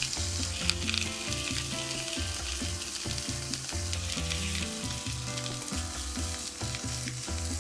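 Pork belly slices and greens sizzling steadily in sesame oil in a frying pan, stirred and turned with chopsticks as the pork fries until it browns.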